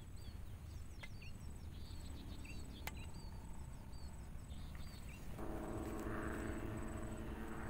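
Quiet rural ambience: small birds chirping and an insect trilling faintly. A steady engine hum comes in about five seconds in and becomes the loudest sound.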